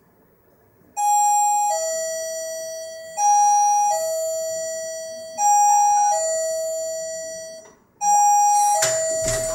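Electronic two-tone ding-dong doorbell chime from a digital door viewer, rung four times about two seconds apart, each time a higher note stepping down to a lower one and fading. A noisy clatter comes in over the last chime near the end.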